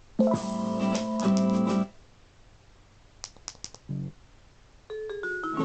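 Short snatches of music from a speaker, each cut off after a second or two as the iPhone skips to the next track, with a few sharp clicks of the remote's push button in between.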